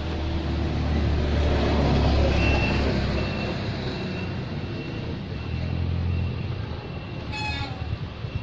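A low rumble that swells and fades twice, like a passing motor vehicle, under a thin steady high whine. A short high-pitched call comes about seven and a half seconds in.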